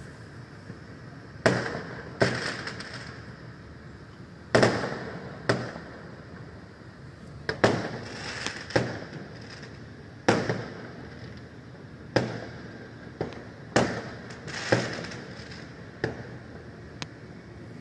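Aerial fireworks exploding: about fifteen sharp booms at irregular intervals, each trailing off in a rolling echo, some followed by a brief crackle.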